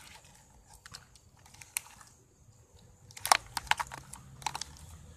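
Plastic spoon stirring thickening glue-and-saline slime in a clear plastic cup, making scattered sticky clicks and scrapes, with a quick run of louder clicks about three seconds in.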